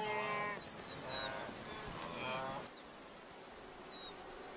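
Wildebeest calling three times in short, pitched, bleating calls over about two and a half seconds, the search call of a mother and calf separated from each other. A steady high insect whine and a few small bird chirps carry on behind.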